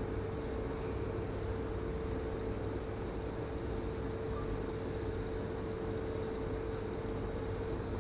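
Multifunction hydrofacial machine running its ultrasonic handle: a steady electrical hum with one constant mid-pitched tone, unchanging throughout.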